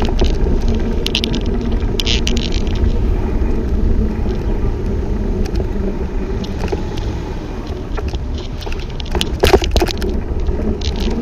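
Wind buffeting the microphone as a bicycle rides along a road with traffic, a steady low rumble with a few short rattles from the bike; the loudest rattle comes about nine and a half seconds in.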